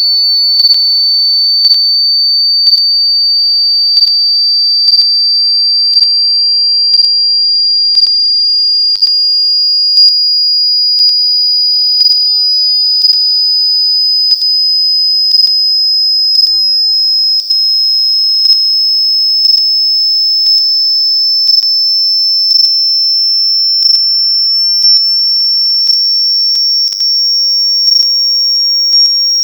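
Hearing-test sine tone, a single high-pitched pure tone gliding slowly and steadily upward in pitch, part of a sweep for the highest frequency the listener can hear. Soft ticks mark it about once a second.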